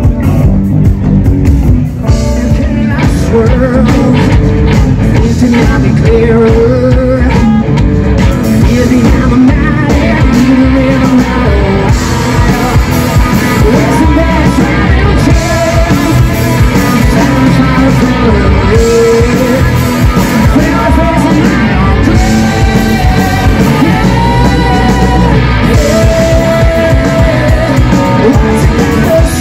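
Live rock band playing loudly: a male singer over electric guitar, bass guitar and a drum kit.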